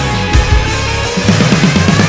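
Country rock song in an instrumental passage with guitar and drums; about a second in the drums break into a fast run of repeated strokes.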